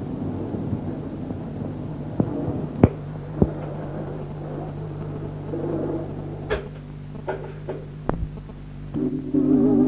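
Steady low hum with a handful of sharp clicks and knocks, some on their own and a quick cluster near the end of the hum. Music comes in about a second before the end.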